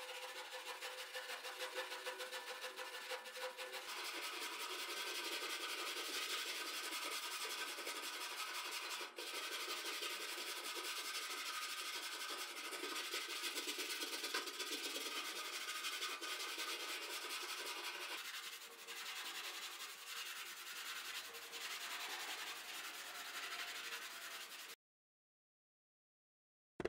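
Hand-held wire brush scrubbing rust off the sheet-steel tray of an old wheelbarrow: rapid back-and-forth scratching strokes of bristles on rusted metal. The sound cuts off suddenly near the end.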